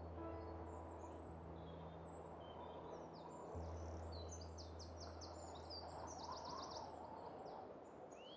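Birds chirping and trilling, with quick runs of repeated notes past the middle, over low sustained music notes that shift chord about three and a half seconds in.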